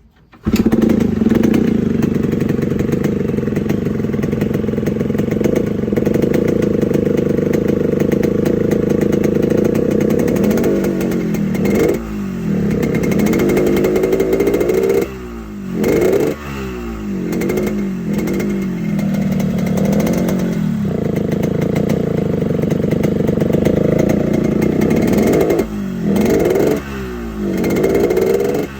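Yamaha RX-King two-stroke single-cylinder motorcycle engine with a raspy 'ngorok' (snoring) exhaust note. It comes in about half a second in and holds a steady high rev for around ten seconds, then is revved up and dropped again and again by blips of the throttle.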